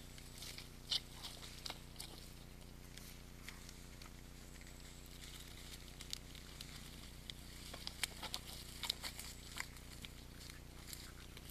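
Red deer moving around a muddy wallow: scattered soft clicks and crackles of hooves in wet mud and vegetation, the strongest about a second in and a cluster near the end, over a steady low hum.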